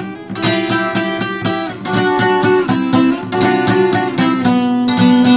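Docerola, a twelve-string acoustic guitar, strummed in steady repeated chords, with no singing over it.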